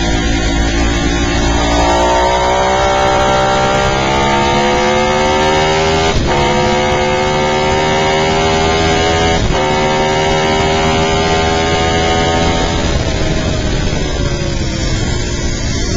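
Sport motorcycle engine heard from on board, accelerating with its pitch climbing steadily, broken by two quick upshifts about six and nine and a half seconds in, then easing off near the end. Heavy wind rush over the microphone underneath.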